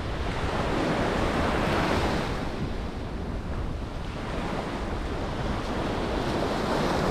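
Sea surf breaking and washing up a sandy beach, with wind buffeting the microphone. The wash swells about two seconds in and again near the end.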